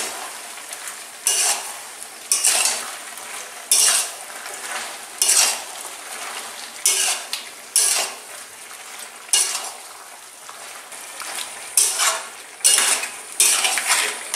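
Metal spatula scraping and turning chicken, potatoes and spices around a metal kadai in about ten separate strokes, one every second or so, over a faint steady sizzle.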